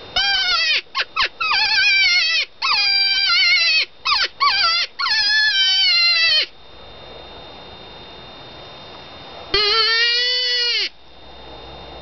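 Open reed predator distress call blown by mouth, giving a string of wavering, squalling animal-distress cries, some short and the longest over a second, for about six seconds; after a pause of about three seconds comes one more cry.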